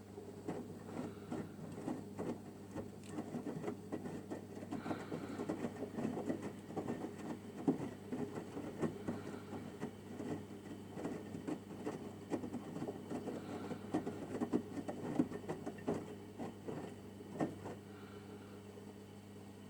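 Samsung WW9000 Ecobubble washing machine running a cold wash: a steady motor hum with irregular pattering and clattering from the turning drum, the sound of the machine generating its bubbles. The pattering eases off near the end.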